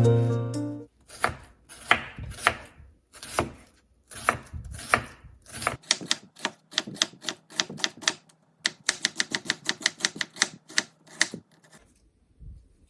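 Knife chopping on a cutting board: slow separate strokes at first, then a quicker run of short rapid chops that stops about a second before the end.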